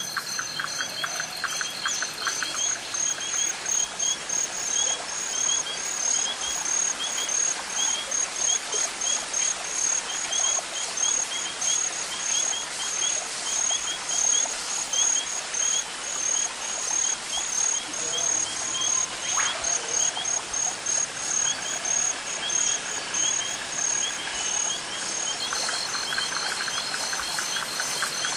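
Evening nature ambience: crickets chirping in a steady, evenly repeating rhythm, with bird calls over the even rush of a river.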